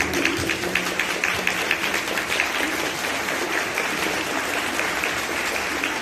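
Audience applauding with dense, steady clapping. The tail of the tango music dies away in the first second.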